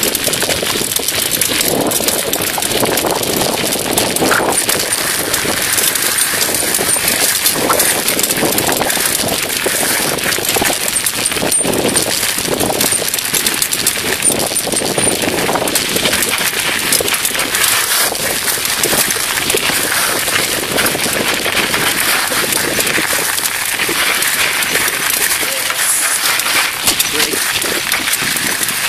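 Bicycle rolling over a loose gravel track: tyres crunching and crackling on stones and the frame rattling, picked up by a camera on the handlebar.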